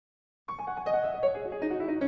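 Background music starts suddenly about half a second in: a melody of notes on a keyboard instrument, piano-like.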